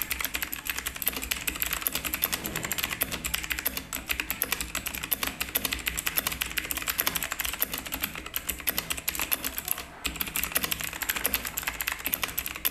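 Continuous fast typing on a Comanro S100 full-size mechanical keyboard with Kailh Blue clicky switches: a dense stream of sharp clicks, with a brief pause about ten seconds in. The clicky switch sound is clear, while the keycaps bottoming out is not too loud.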